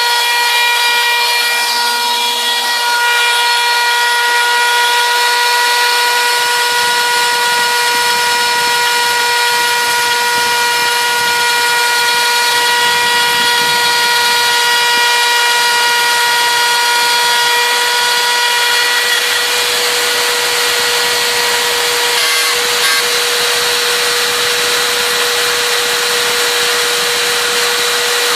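RotoZip spiral saw running with a steady high-pitched whine on a homebuilt CNC router, its wood-cutting bit cutting slowly along the toolpath. A couple of faint ticks come about three quarters of the way through.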